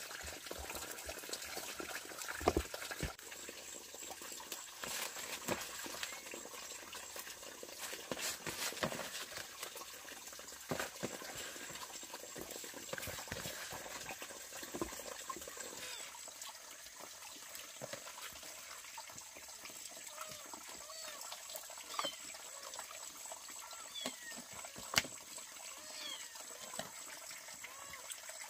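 An animal's repeated short calls, more frequent in the second half, over scattered light clicks and knocks.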